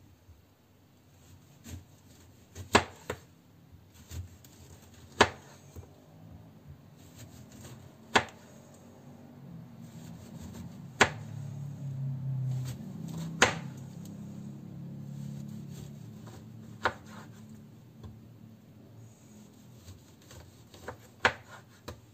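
Kitchen knife slicing an orange into thin rounds on a wooden cutting board: about seven sharp knocks of the blade meeting the board, one every two to four seconds as each slice comes off. A low hum swells and fades in the middle.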